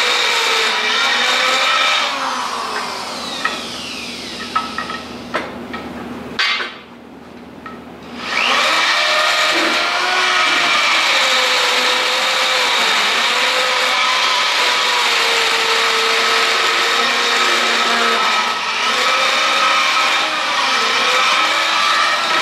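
Handheld electric drill running under load as its bit cuts into a steel plate, the motor whine wavering in pitch with the pressure. About two seconds in it eases off, with a few small clicks, and goes quiet for a moment, then spins back up around eight seconds in and runs steadily.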